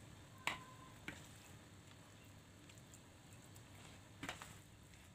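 A few faint clicks and knocks over low room hum: a metal spoon knocking against a plastic bowl while scooping grated cassava dough. The loudest knock comes about half a second in and rings briefly, with another soon after and a small cluster near the end.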